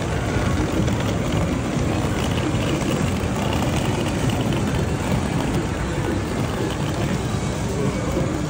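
Steady street ambience on a wet night: a continuous low rumble with an even hiss over it, with no distinct event standing out.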